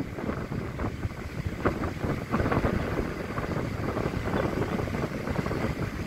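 Wind buffeting the microphone: a gusty, rumbling noise that rises and falls unevenly, with no steady engine tone.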